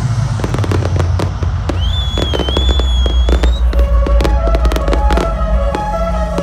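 Fireworks bursting over the stage in dense, irregular bangs and crackles, over loud electronic dance music with a deep bass. A high wavering whistle sounds for about two seconds, starting about two seconds in, and held melody notes come in at about four seconds.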